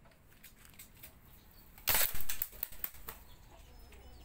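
A single shot from a homemade pump-up PVC pipe air rifle about two seconds in: a short, sharp burst of released air. A few faint clicks follow.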